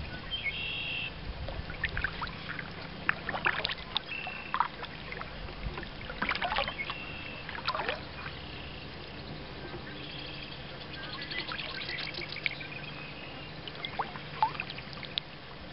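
Kayak paddle dipping into lake water, splashing and dripping at each stroke, with birds calling in short high notes several times.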